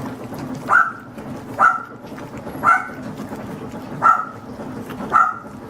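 Adult poodle, the puppies' mother, barking in the background: five short yaps about a second apart. The owner puts the yapping down to jealousy over the food the puppies are getting.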